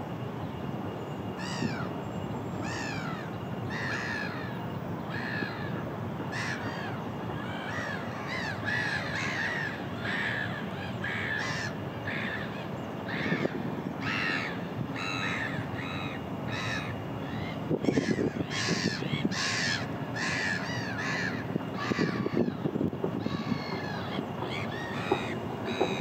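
A flock of black-headed gulls calling: many short calls overlapping, several a second, many dropping in pitch, over a steady background hiss.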